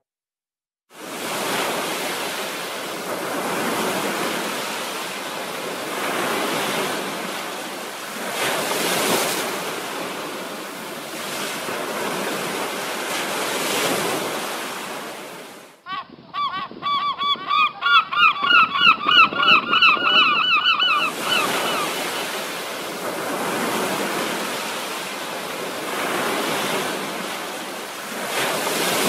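Ocean surf washing in, swelling and fading every couple of seconds. About halfway through it cuts off and a rapid, loud run of bird calls takes over for about five seconds before the surf returns.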